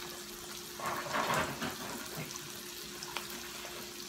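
Salmon with bell peppers and onions sizzling in butter in a frying pan: a steady frying hiss, with a louder rushing noise for under a second about a second in.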